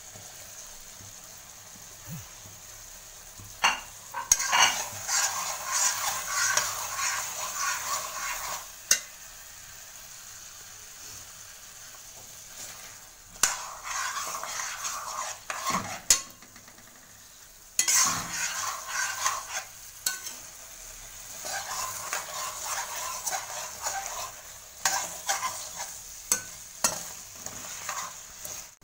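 Metal spatula stirring and scraping through a thick, sizzling tomato-and-jaggery chutney in a metal kadai, in about four spells of stirring with sharp knocks of the spatula against the pan between and within them. A faint sizzle carries on in the pauses.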